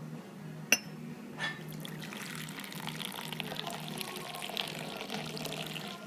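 Hot chai poured from a stainless steel tumbler into a steel bowl, a steady splashing pour that starts about two seconds in and froths the tea. The pouring is done to cool the chai and bring out its aroma. Under a second in there is one sharp clink of steel on steel.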